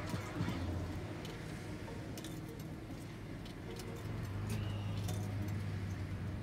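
Coins being fed into a car-wash payment machine: a scatter of small clicks and clinks at the coin slot, over the low steady hum of the car's idling engine.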